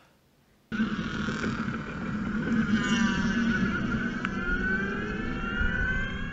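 Electric race car (EVSR) accelerating from near standstill, its drivetrain whine rising slowly in pitch as speed builds, over a steady low hum and road noise. The sound starts abruptly under a second in, and there is a single sharp click a little after the middle.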